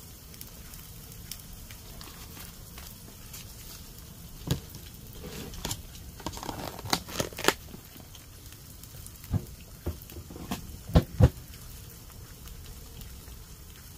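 A run of sharp clicks and knocks, about eight, spread over several seconds above a low steady background noise. The loudest two come in quick succession about eleven seconds in.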